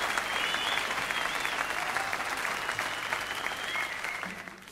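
Concert audience applauding, with a few high whistles over the clapping. The applause fades out near the end.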